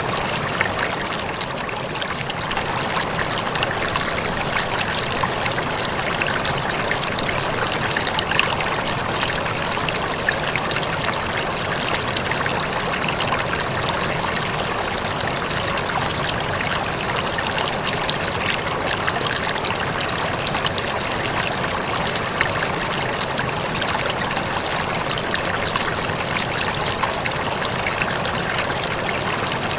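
Steady trickle and splash of an aquarium's circulating water.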